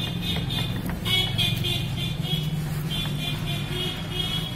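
A vehicle engine running steadily at idle, with a rapid, high-pitched pulsing sound of about five pulses a second coming and going over it.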